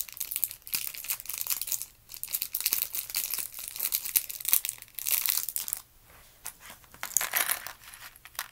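Crinkling of a small plastic bag of Lego pieces being handled and opened. The crackling goes on almost without a break for about six seconds, then comes in a few shorter bursts near the end.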